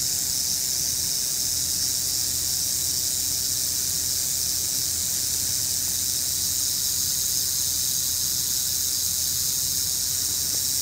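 Timber rattlesnake rattling its tail: a steady, high-pitched buzz, the defensive warning of a coiled, disturbed snake.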